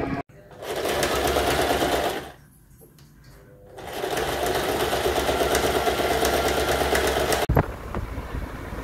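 Small domestic electric sewing machine stitching in two runs: about a second and a half, a short pause, then about three and a half seconds.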